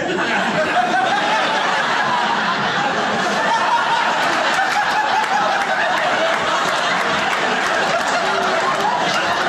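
A theatre audience laughing together at a stand-up comedian's punchline, a long, steady crowd laugh.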